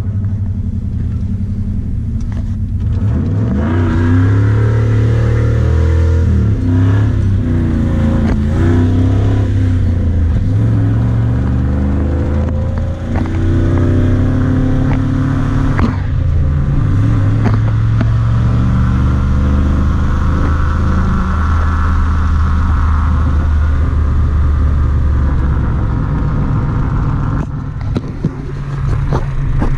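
Supercharged pickup truck's engine heard from inside the cab. It pulls up through the gears of its manual gearbox, its pitch rising several times with short breaks at the shifts, then settles into a steady cruise.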